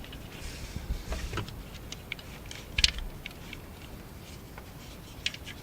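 Scattered light metallic clicks and clinks of tools and parts being handled while an alternator is worked into place in the engine bay, with one sharper clink about three seconds in.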